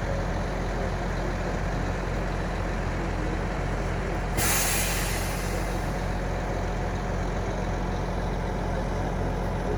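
Heavy diesel truck idling steadily, with a short blast of air-brake hiss about four and a half seconds in.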